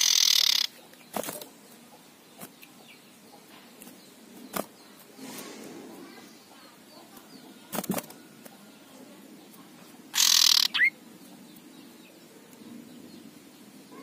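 Male common iora giving its harsh, rasping 'ngekrek' call twice, once at the start and again about ten seconds in, the second call ending in a short rising whistle. A few sharp taps are heard between the calls.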